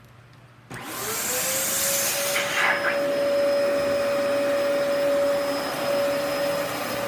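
Dyson vacuum cleaner switched on less than a second in. Its motor whine rises in pitch as it spins up, then settles into a steady run, with a brief louder rush of noise shortly after it reaches speed.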